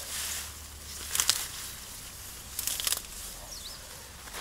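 Grass and reeds being pulled and torn by hand: two short bursts of rustling and tearing, one about a second in and another around three seconds.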